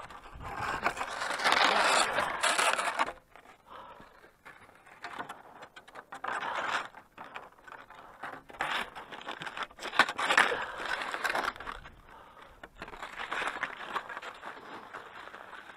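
Cross-country skis and gear scraping on snow: a louder stretch of scraping in the first three seconds, then quieter, irregular scrapes and shuffles.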